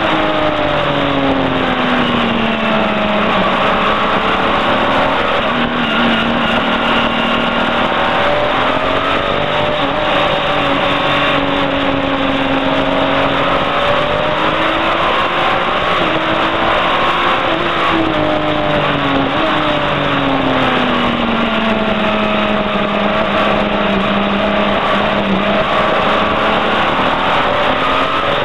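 Onboard sound of a touring race car's engine at racing speed, its pitch repeatedly climbing and falling as the car accelerates and slows through the corners, over a steady rush of noise.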